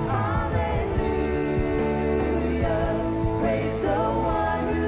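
Live worship band playing a song, with drums and acoustic and electric guitars under a sung melody that rises and bends in phrases.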